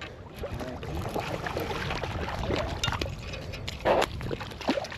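Water splashing and sloshing while a hooked largemouth bass is fought and reeled in, with a brief louder splash about four seconds in.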